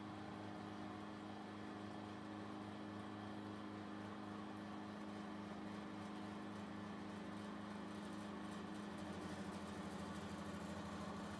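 Thojomech TFC11 CNC milling machine cutting aluminium with a 12 mm four-flute end mill, 3 mm deep: a steady hum of spindle and cut that grows a little louder near the end.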